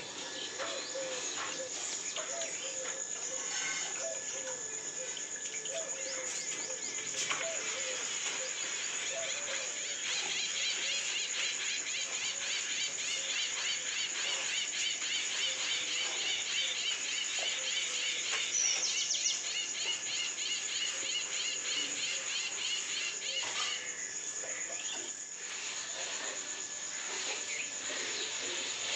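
Insects buzzing and trilling: a steady high-pitched buzz, joined about a third of the way in by a fast pulsing trill that stops a few seconds before the end.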